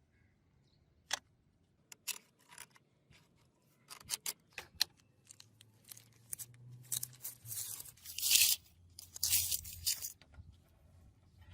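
Scattered sharp clicks and knocks, then several short, harsh rasping scrapes about two-thirds of the way through.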